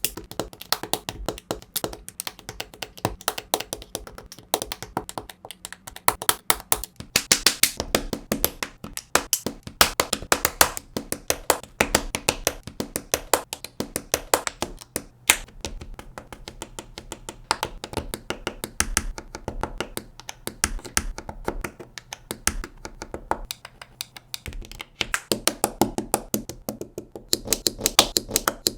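Plastic LEGO bricks clicking and snapping together in quick succession as pieces are fitted and pressed on, with busier stretches of clicks in places.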